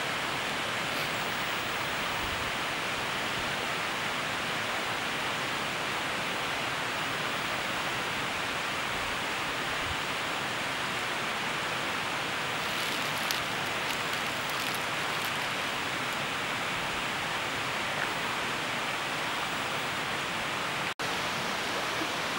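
Steady, even rushing noise of running water, broken by an instant's dropout near the end.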